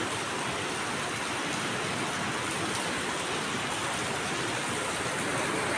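Steady rain falling on wet paving.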